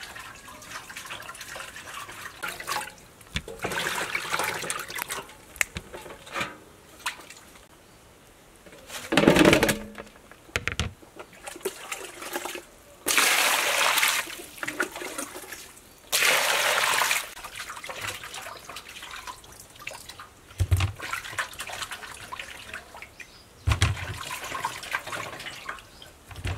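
Water sloshing and splashing in a large aluminium basin as cut bamboo shoots are washed by hand. Two loud gushes of poured water come a little past the middle, and there are a few dull thumps.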